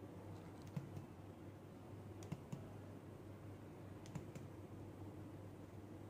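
A few faint, soft taps of abdominal percussion: fingers striking the finger laid flat on the belly, mostly in quick pairs about two seconds apart, over a low steady hum.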